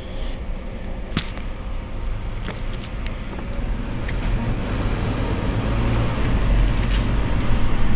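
Mercedes-Benz Citaro C2 Euro 6 city bus idling at a standstill, heard from behind: a steady low engine rumble that grows louder over the second half, with a sharp click about a second in.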